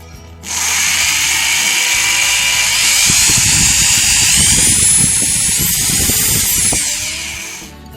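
Foster FSD-010 corded 350-watt screwdriver-drill motor running, its whine climbing in pitch about three seconds in as the variable-speed trigger is pressed harder. It then winds down and stops near the end.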